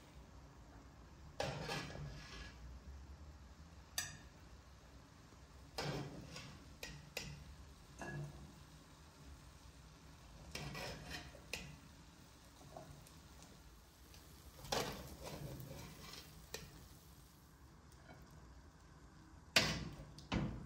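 Serving spoon scooping rice pilaf out of a metal pot onto a ceramic plate: about a dozen irregular scrapes and knocks of utensil on pot and plate, a few seconds apart. The last two near the end are the loudest.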